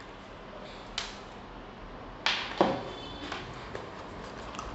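Unboxing handling noises: a few light clicks and knocks as a smart speaker's plastic power adapter, cable and cardboard box are handled, the loudest about two and a half seconds in, with fainter ticks after.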